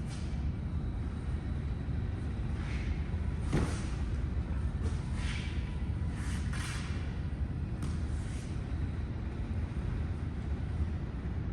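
Aikido practitioners moving on mats: brief swishes of feet and clothing, several times, and a thump about three and a half seconds in, over a steady low rumble.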